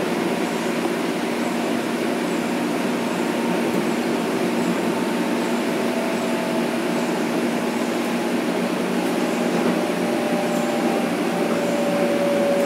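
Metro-North M7 electric multiple unit heard from inside the car while running: steady rolling noise and a low hum, with the AC traction motors' whine gliding down in pitch from about halfway through as the train slows.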